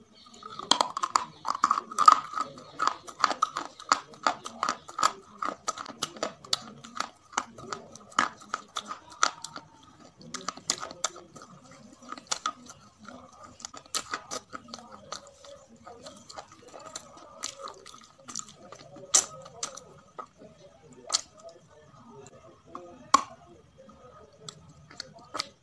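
A person biting and chewing crispy KFC Hot & Spicy fried chicken close to the microphone: many sharp crunches from the coating, coming thick and fast for the first several seconds, then sparser, with softer chewing between them.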